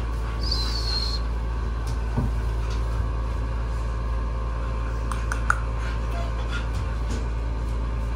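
Steady low rumble, with a brief high-pitched chirp about half a second in and a few faint clicks around five seconds in.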